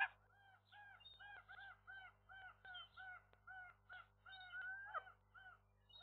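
A common gull calling a quick run of short notes, each rising and falling, about three a second, with one longer note near the end. A sharp click at the very start is the loudest moment.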